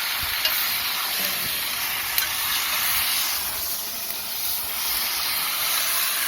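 Chicken pieces frying and browning in hot oil in a pot: a steady sizzling hiss with a few small crackles.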